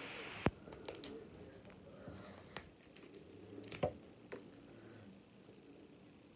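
Crab leg shell cracked and peeled by hand: a handful of sharp snaps of shell with soft, moist squishing between them as the meat is pulled free.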